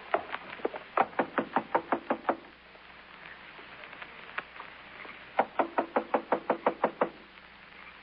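Knocking on a door, a radio-drama sound effect: a quick run of about ten knocks, a pause of about three seconds, then a second run of about ten knocks, with no answer.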